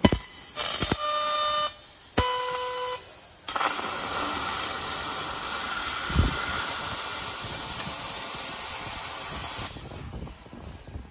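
30 kW fiber laser cutting head working 30 mm mild steel: two short hissing bursts with a steady whistling tone as the beam pierces the plate, then a steady loud hiss of the assist gas and cut for about six seconds that stops suddenly near the end.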